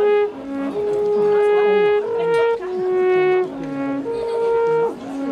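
Alphorn playing a slow melody of long held notes, stepping between a few pitches and coming back several times to the same low note.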